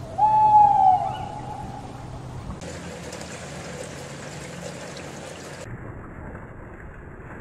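A small owl gives one loud, slightly falling call lasting under a second. It is followed by a steady wash of water moving and lapping.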